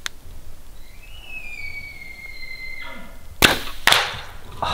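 Bull elk bugling: a high whistle that rises, then slides slowly down for about two seconds and breaks to a lower note. Two loud grunts about half a second apart follow.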